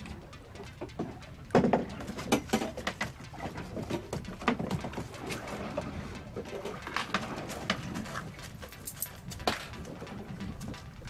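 Irregular knocks and clatter as a caught fish is brought aboard a small boat in a landing net and handled on the deck, the sharpest knocks about a second and a half in and again midway.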